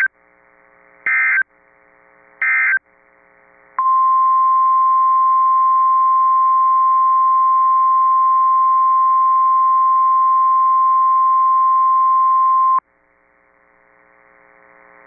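NOAA Weather Radio digital SAME data bursts, three short warbling screeches about a second apart, the end-of-message code after a warning. About four seconds in, the steady 1050 Hz weather radio alert tone follows, holding for about nine seconds and then cutting off sharply. A faint steady hum of the radio channel lies under the gaps.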